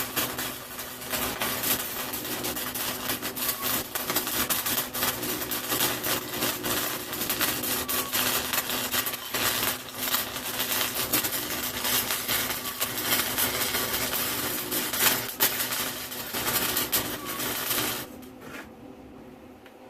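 Wire-feed (MIG) welder arc crackling continuously over a steady electrical hum, then stopping abruptly near the end when the trigger is released.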